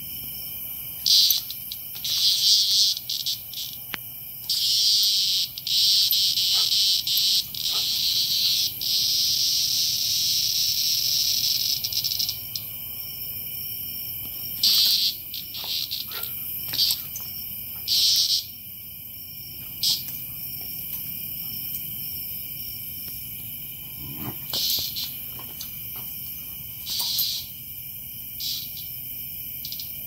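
A cicada on the ground giving harsh bursts of buzzing as it is pestered: several short buzzes, then one long buzz of about seven seconds, then shorter, sparser bursts. A steady chorus of night insects runs behind it.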